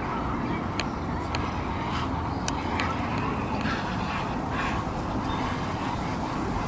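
Mallards quacking softly now and then over a steady low rumble of distant traffic.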